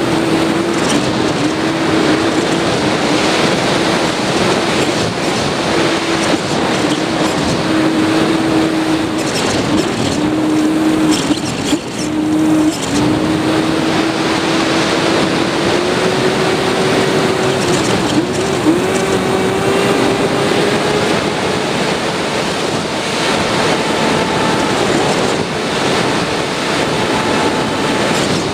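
Onboard audio of a Sky Surfer (Bixler) RC plane in flight: a steady rush of wind on the camera microphone with the electric motor and propeller whining underneath. The whine dips briefly several times around the middle, rises a little in pitch, then fades, and a thinner, higher tone runs through the last few seconds.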